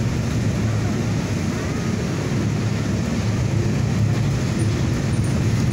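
Steady low drone of a city bus's engine and road noise, heard from inside the bus.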